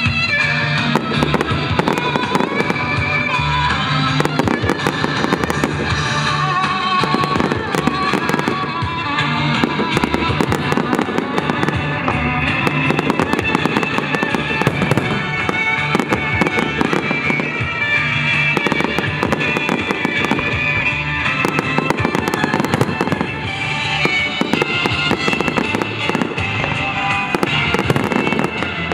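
Aerial firework shells bursting and crackling in rapid, overlapping succession, over loud music.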